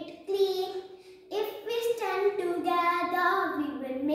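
A young girl singing a children's Earth Day song without accompaniment, holding notes that step up and down, with a brief pause about a second in.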